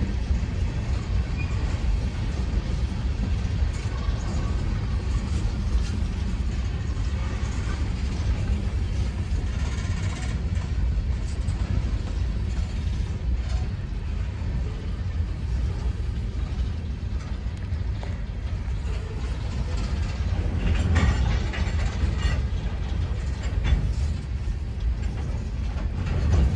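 Freight train's open-top coal hopper cars rolling past: a steady low rumble of steel wheels on the rails, with knocks and rattles from the cars. There is a brighter burst of clatter about 21 seconds in.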